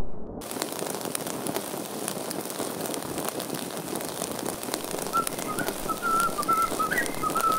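A steady crackling hiss. From about five seconds in, a person whistles a short wavering tune of quick notes, with one jump up in pitch near the end.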